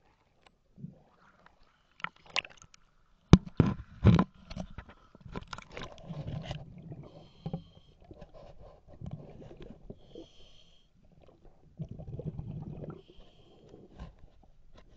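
Diver breathing through a regulator underwater: exhaled bubbles rumble out in bursts about a second long every few seconds, with short hissing inhalations between them. A cluster of sharp knocks comes about three seconds in.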